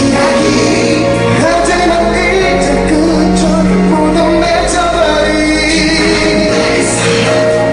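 Live pop song: a male singer singing into a microphone over backing music.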